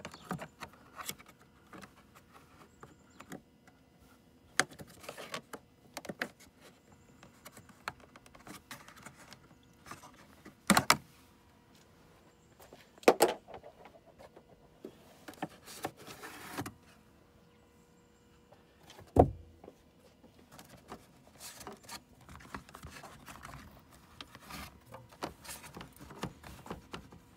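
Plastic under-hood trim panels and the cabin air filter housing of a Tesla Model S being handled and pulled free by hand: scattered clicks, scrapes and rattles, with a few louder sharp knocks spread a few seconds apart.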